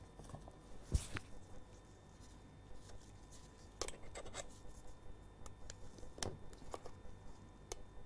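Faint handling noises: small plastic and metal clicks and rubbing as gloved hands work a small metal washer onto a plastic air-pump diaphragm assembly. The loudest click comes about a second in, with a quick run of clicks around four seconds.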